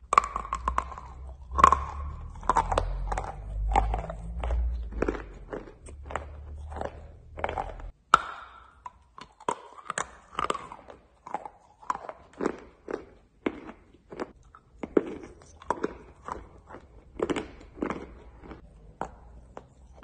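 Close-up biting and chewing of pieces of white chalk: a run of crisp crunches, about one to two a second. A low rumble sits under the first part and cuts off about eight seconds in.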